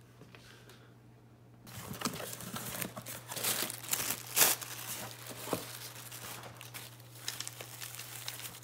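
Plastic packaging crinkling and rustling as a small cardboard box is unpacked by hand, starting about two seconds in.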